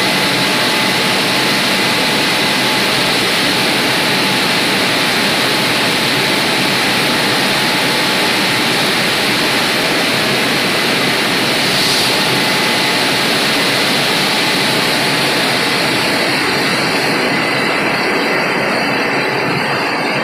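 WashTec rollover gantry car wash machine running over a car: a steady loud rushing noise with a faint high whine. The hiss thins out in the last few seconds.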